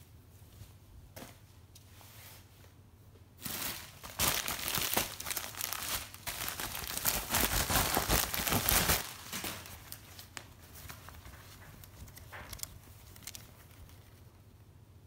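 Packaging being crumpled and torn open by hand, a dense crinkling for several seconds about a third of the way in, then quieter handling clicks and rustles.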